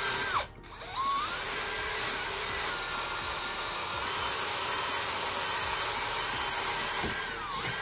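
Cordless drill spinning a wire wheel brush against a car seat's metal rail, scrubbing it clean. The motor runs with a steady whine, stops briefly about half a second in, starts again with a rising whine, and winds down with a falling tone near the end.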